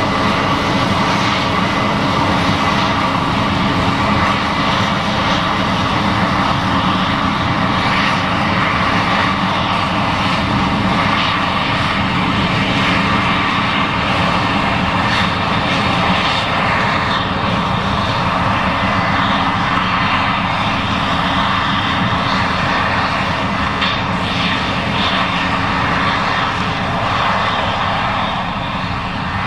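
Case IH 7140 Axial-Flow combine running steadily under load while harvesting corn, its engine and threshing machinery making a loud, even drone.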